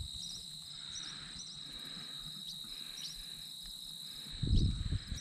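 Insects trilling in tall grass: a steady high buzz with short chirps repeating about twice a second. A brief low rustle comes near the end.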